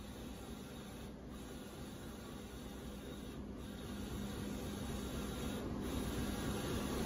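Wide-format inkjet printer running a print job on embossed wallpaper roll, its print-head carriage sweeping across with a steady whirring hiss. The hiss briefly dips about every two seconds and grows louder toward the end.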